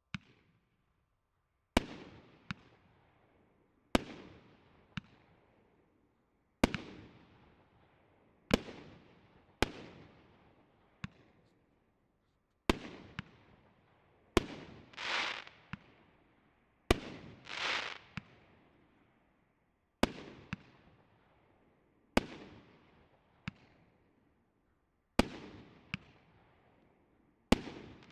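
Firework battery (cake) firing its shots one after another, a sharp bang about every two seconds, each trailing off, often with a smaller pop just after. Twice, midway, a shot is followed by a longer swelling rush of sound.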